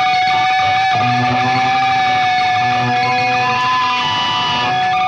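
Music: an electric guitar holding one long sustained note, with lower guitar notes coming in beneath it about a second in.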